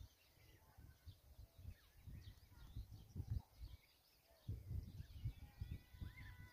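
Wind rumbling on the microphone in gusts, with faint chirps and whistles of small birds in the background.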